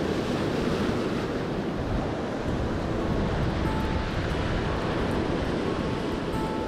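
Rough surf washing against a rocky shore in a steady rush, with wind buffeting the microphone.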